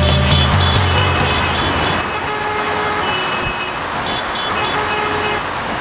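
Highway traffic noise from passing cars and trucks, with several short car-horn honks. A deep low drone sounds for the first two seconds, then drops away.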